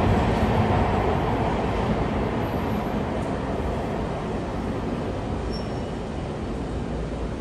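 MARTA subway train rumbling away down the tunnel, its low rumble fading steadily.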